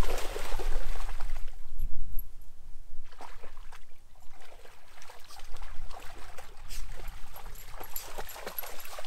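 A dog wading through shallow lake water: irregular splashing and sloshing, busiest in the first couple of seconds.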